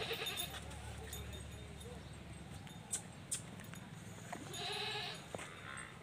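Young Kota goat bleating once, a short call about four and a half seconds in, with two sharp knocks a little before it.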